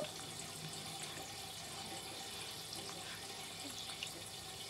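Faint steady hiss of room tone, with a soft click at the very start.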